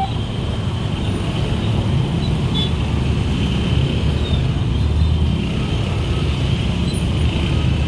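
Road traffic running steadily past: a continuous rumble of vehicle engines and tyres.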